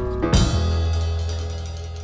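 Background music with a drum kit: a last drum and cymbal hit, then a held chord and bass note slowly fading.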